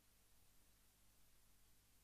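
Near silence: faint recording hiss with a steady low hum.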